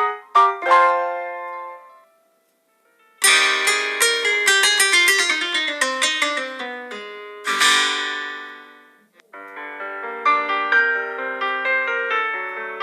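Instrumental music of plucked and keyboard-like melody notes. It stops about two seconds in and is silent for about a second. A fuller passage then starts, and after it fades a new passage begins a little past the middle.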